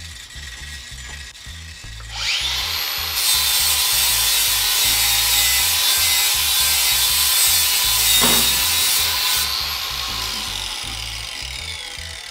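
Cordless Makita angle grinder spinning up about two seconds in and grinding against a pipe for about six seconds with a loud, steady grinding noise over a high motor whine. Near the end it is lifted off and winds down with a falling whine.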